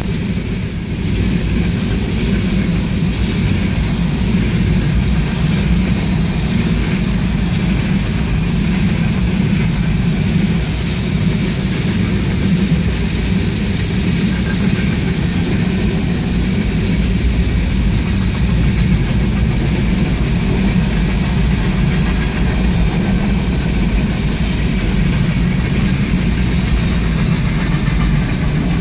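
Freight cars of a passing train rolling by at speed: the steady, loud noise of steel wheels running on the rails.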